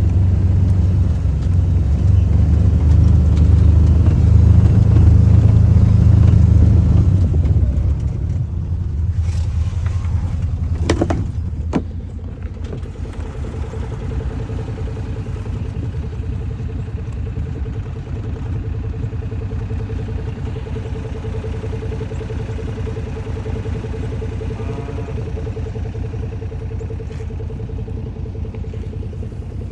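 A farm vehicle's engine running, louder for the first several seconds and then settling to a steadier, quieter run, with a few sharp knocks around the middle.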